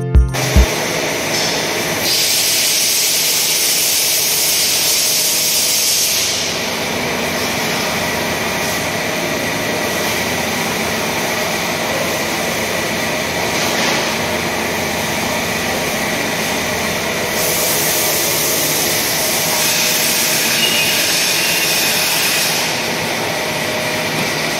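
Steady running noise of workshop machinery: a constant hiss with a faint high whine, with a louder, brighter hiss joining twice for about four to five seconds each time.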